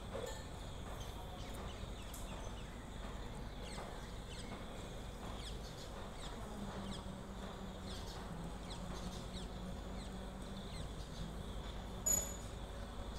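Quiet outdoor ambience with faint, repeated short chirps of small birds, and one brief sharp high-pitched call near the end.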